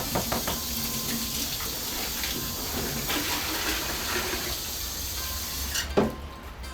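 Okonomiyaki sizzling on a hot griddle, a steady hiss that stops short near the end. There is a sharp click at the start and a loud knock about six seconds in.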